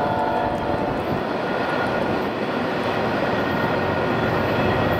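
Double-stack intermodal freight train rolling away around a curve: a steady rumble of wheels on rail. A few high steady tones fade out about a second in.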